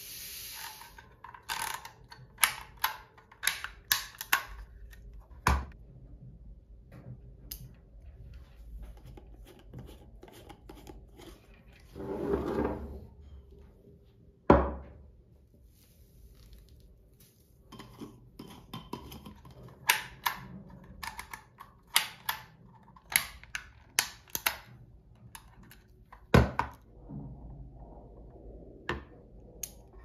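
Glass spice jars and plastic bags being handled on a wooden table: a run of light clicks and taps, a short burst of plastic rustling, and a few dull thunks as a glass jar is set down on the wood. The loudest thunk comes about halfway through.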